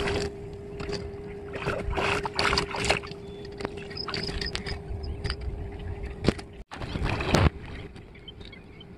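Lake water sloshing and splashing around the legs of a man wading in the shallows, with louder splashes about two seconds in and again near the end.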